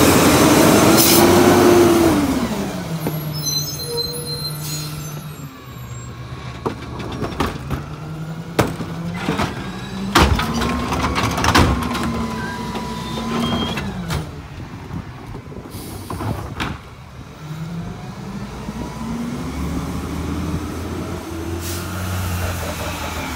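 CNG McNeilus rear-loader garbage truck on a Mack MRU chassis: a loud air-brake hiss with the engine revving up and back down at the start, then sharp bangs of trash carts being tipped into the hopper, with the engine revving up and down again twice as the truck works and moves off.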